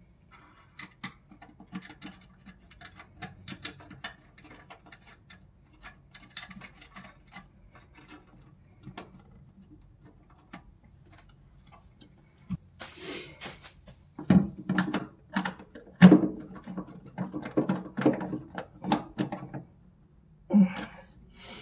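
Hands handling a plastic horn speaker and its mount against a car's metal inner wing: scattered light clicks and taps, then over the last several seconds a denser run of louder knocks and rattles as it is fastened in place.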